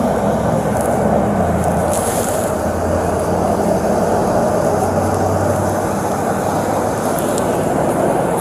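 Vehicle engine idling close by: a steady running noise with a low hum beneath it.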